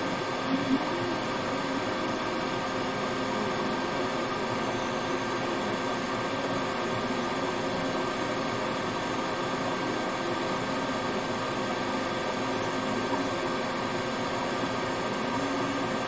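Steady whirring hum and hiss of a fan or blower running at a microsoldering bench, with a few faint steady tones and a couple of small taps about half a second in.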